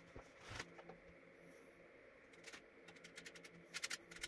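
Light clicks and taps from handling a test cable and connectors on bench test gear, with a quick cluster of sharper clicks just before the end, over a faint steady electrical hum from the running equipment.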